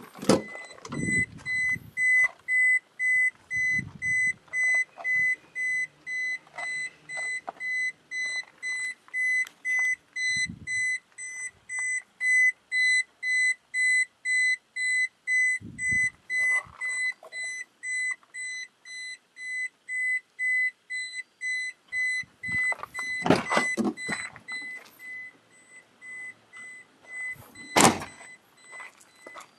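The car's warning buzzer beeping in a steady, evenly spaced rhythm after the driver's door is opened, the usual door-open reminder chime, going faint near the end. Occasional thumps and a few sharp knocks near the end come from handling the car's door and body.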